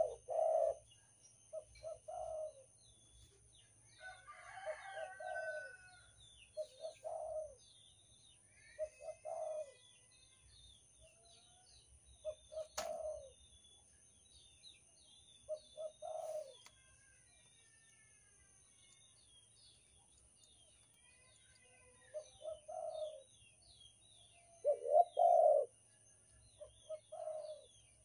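Spotted dove (derkuku) cooing in short phrases of a few low notes, repeated every second or two, with a pause of several seconds in the middle and the loudest phrases near the end. Small birds chirp faintly in the background.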